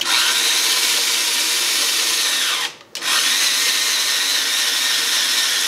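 Electric screwdriver drive module on a homemade slotting mill, whirring as it turns the tube-holding fixture. It runs for about two and a half seconds, stops briefly, then runs again for about as long.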